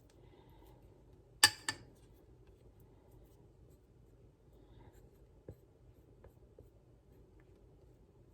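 Spatula or spoon scraping thick melted chocolate mixture from the inside of a pot, a faint rubbing scrape, with two sharp knocks of the utensil against the pot about a second and a half in.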